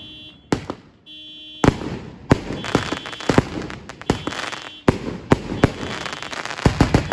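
Aerial fireworks bursting overhead: about a dozen sharp bangs in quick succession, each trailed by the crackle of bursting stars, coming thickest near the end.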